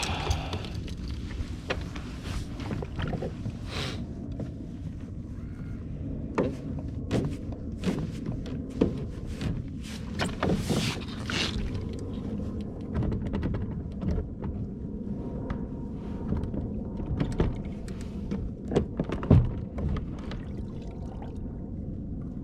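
Knocks and thunks against a fishing kayak, scattered throughout over a steady low rumble, with two brief hissing swishes about halfway through and the sharpest knock near the end.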